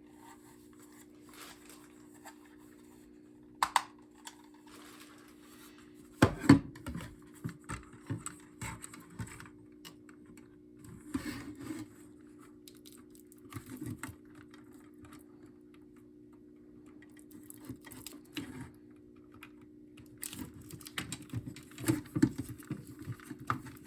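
Hard plastic clicking, knocking and rattling as smoke alarms and their wiring harnesses are handled and plugged in. There is a sharp knock about six seconds in and busier clatter near the end. A steady low hum runs underneath.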